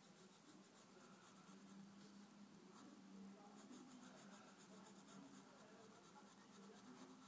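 Faint scratching of a graphite pencil drawing short strokes on paper, over a low steady hum.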